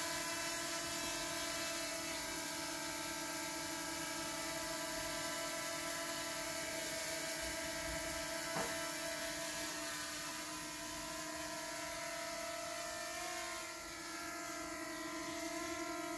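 Small DJI quadcopter drone's propellers buzzing with a steady multi-tone whine as it hovers just off the ground and then climbs; the pitch shifts slightly near the end.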